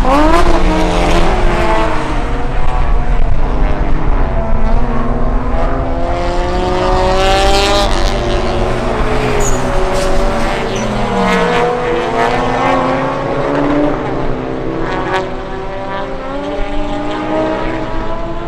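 Several race car engines revving at once, their overlapping notes rising and falling as the cars accelerate and lift, with one sharp rise about seven seconds in.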